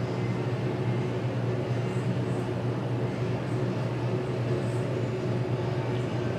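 A steady low mechanical hum that holds even and unchanging throughout.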